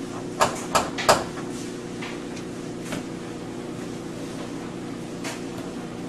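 Knuckles rapping on a wooden front door: three quick knocks about half a second to a second in, over a steady low hum. A few faint single taps follow.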